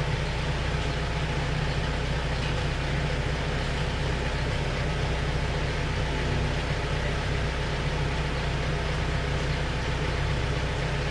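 Yamaha NMAX 155 scooter's single-cylinder engine idling steadily through its stock exhaust.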